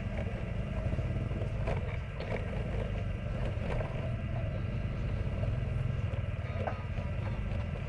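Motorbike running through street traffic: a steady low engine and road noise, with a few faint ticks.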